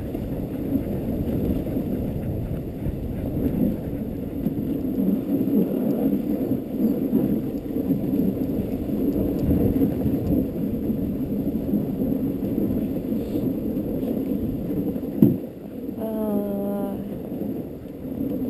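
Dogsled runners sliding over a packed snow trail, a steady rumbling scrape. A single sharp knock comes about fifteen seconds in, and a short whine about a second later near the end.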